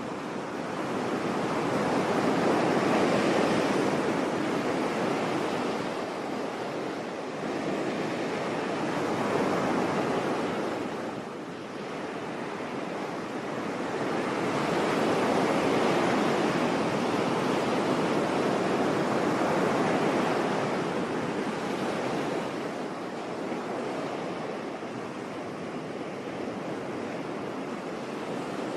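Sea waves breaking and washing on the shore, a steady surf noise that swells and ebbs in slow surges every several seconds.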